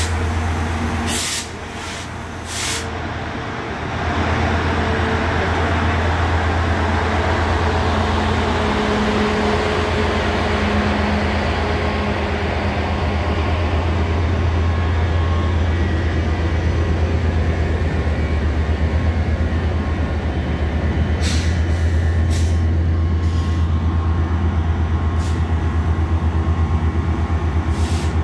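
Metrolink commuter train's diesel locomotive running close by, a loud steady low drone with a fine throb, as the train moves along the platform. A few sharp clicks break in about a second in and again about two-thirds of the way through.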